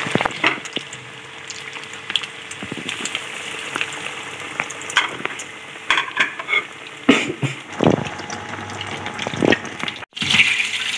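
Breadcrumb-coated potato donuts deep-frying in hot oil, a steady sizzle with scattered crackling; they have fried to golden brown and are nearly done. A few louder knocks come between about seven and nine and a half seconds in, and the sound breaks off for a moment near the end.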